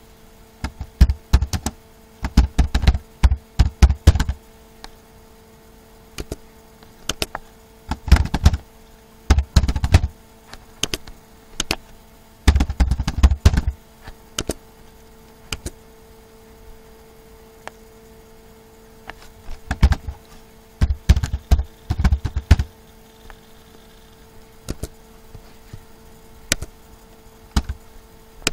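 Computer keyboard being typed on in four short spells of quick keystrokes with pauses between them, over a faint steady hum.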